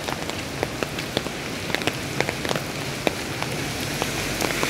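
Rain falling on an umbrella overhead: scattered sharp drop taps over a steady hiss of rain. A higher hiss builds near the end.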